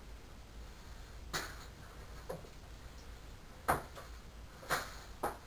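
A handful of brief light clicks and taps spread a second or so apart, the loudest a little past the middle: handling of a cracked hard-boiled egg and its broken shell.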